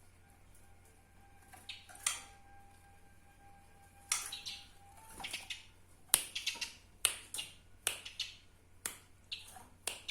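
Eurasian tree sparrow giving short, sharp chirps, a few spaced out at first and then a quick irregular run of them from about four seconds in.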